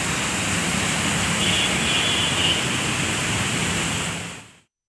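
Steady rushing noise of rain and traffic on a waterlogged street. It cuts off abruptly near the end.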